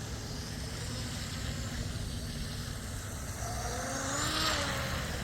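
Small electric RC tunnel boat running out on the water, heard at a distance. Its motor and prop whine rises and falls between about three and four and a half seconds in, over a steady low rumble.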